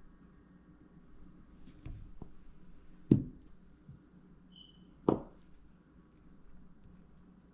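Wire cutters snipping 20 gauge silicone motor wire: two sharp snaps about two seconds apart, with a few light handling clicks between them.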